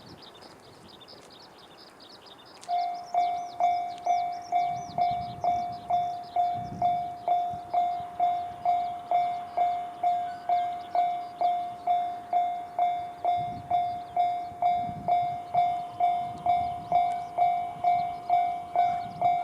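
Japanese railway level-crossing alarm, the JR standard electronic crossing bell, switching on about three seconds in and then ringing a steady, evenly repeated ding a little over twice a second, each strike fading quickly: the crossing is warning of an approaching train.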